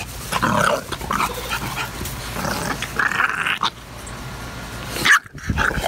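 English bulldogs play-wrestling, making short dog vocal noises in irregular bursts, with a brief lull about five seconds in.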